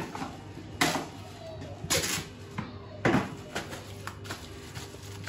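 Plastic cling wrap crinkling and rustling as it is stretched and pressed around a bowl, with three louder crackles about a second apart and softer rustling between. A faint steady low hum runs underneath.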